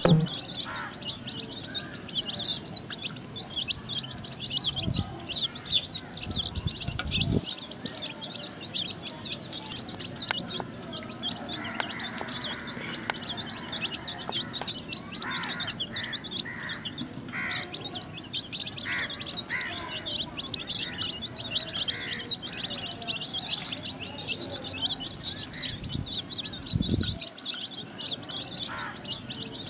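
Several young chicks peeping nonstop, many rapid high-pitched peeps overlapping one another. A few low thumps come about five seconds in, again two seconds later and near the end.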